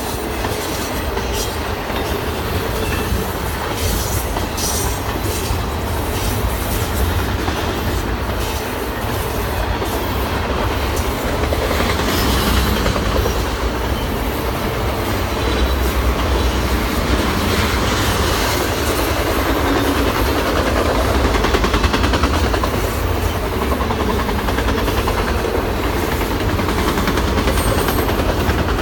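Double-stack intermodal freight cars rolling past: a steady rumble of steel wheels on the rails, with scattered sharp clicks.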